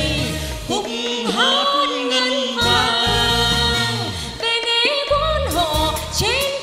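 A man and a woman singing a Vietnamese song as a duet over a band backing, drawing out long, gliding notes.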